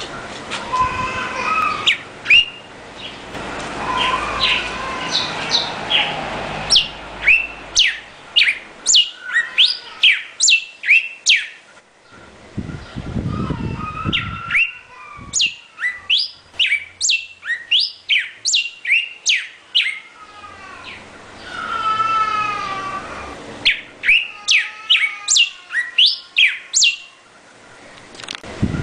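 Northern cardinal singing: phrases of clear whistles, each falling steeply in pitch and repeated about twice a second, with short pauses between phrases. A brief low rumble comes about halfway through.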